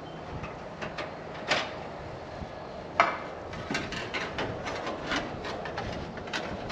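Small clicks and knocks of a car part being handled and test-fitted by hand in an engine bay, with one sharper knock about three seconds in and a quicker run of light clicks after it.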